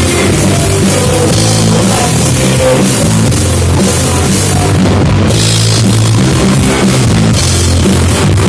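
Rock band playing live, loud, with drum kit, bass and guitars.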